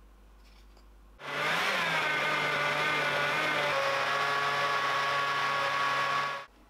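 Countertop blender motor switched on about a second in, running steadily with a motor whine as it purées oats and bananas into banana-bread batter, then cut off shortly before the end.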